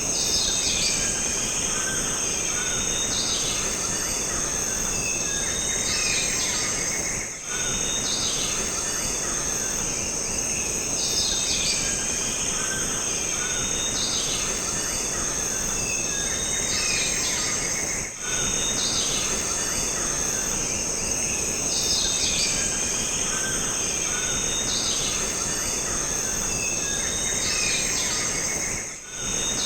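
Jungle ambience: a steady high-pitched insect drone with repeated bird calls over a broad hiss. The level drops briefly three times.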